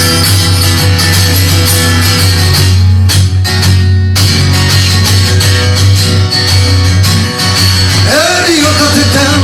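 Loud rock band music with guitar, thinning briefly about three seconds in; a singing voice comes in near the end.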